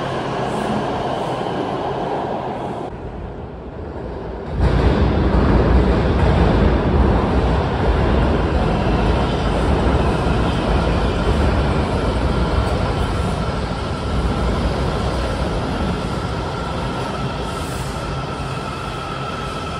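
WMATA 7000-series Metro trains running through an underground station, a steady rumble of wheels on rail. It breaks off for a moment about three seconds in, then a second train comes in louder and deeper. Under its rumble a faint whine climbs slowly in pitch.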